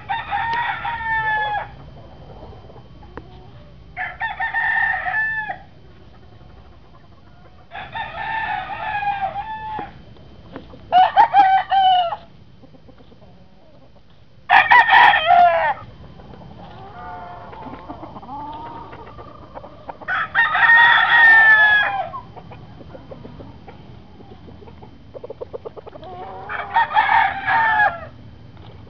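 Rooster crowing again and again, seven crows a few seconds apart, each about a second and a half long, with softer clucking in between around the middle.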